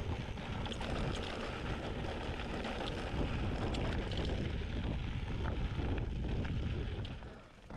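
Wind rushing over the microphone with a steady low rumble as a mountain bike descends a rocky dirt trail, with scattered knocks and rattles from the bike over rough ground. The noise drops away briefly near the end.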